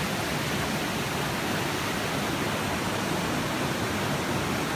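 A steady, even rushing noise spread across low and high pitches, with no breaks or distinct events.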